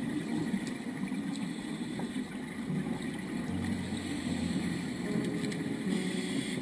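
Steady, muffled low underwater rumble of water noise against a dive camera's housing.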